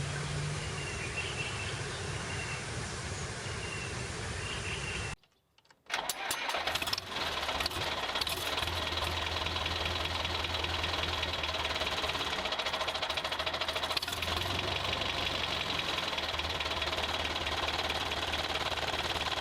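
A steady hiss with a few faint chirps, then, after a sudden half-second gap about five seconds in, a small motor starts up with an uneven first second and runs steadily with a fast rattling tick.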